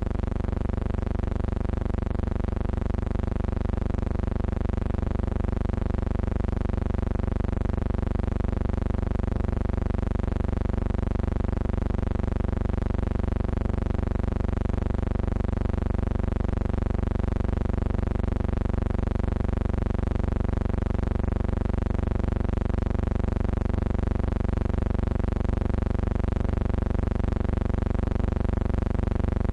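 A steady, unchanging electrical hum with many overtones, flat in pitch and loudness throughout.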